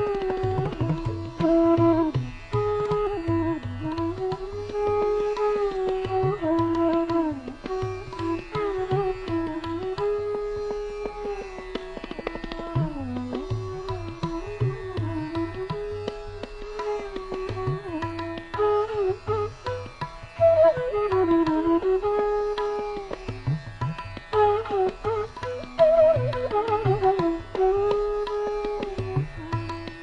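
Instrumental background music in an Indian classical style: a melody that slides between held notes over repeated low drum strokes.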